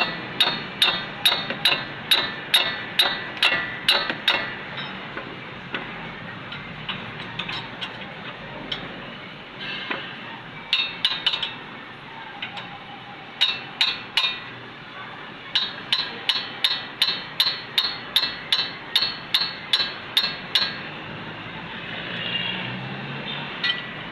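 Hammer striking metal in runs of quick, ringing blows, about two to three a second, broken by pauses.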